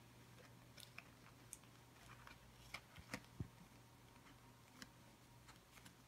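Faint, irregular crackles and clicks of a stiff, shiny foil party hat being folded and creased by hand, the loudest a little past the middle, over a low steady hum.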